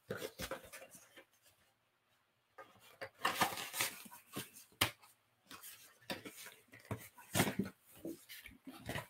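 Rustling and light clicks as a sheet of high density screen-printing film and its packaging are handled on a desk, in irregular bursts with a sharp click about five seconds in.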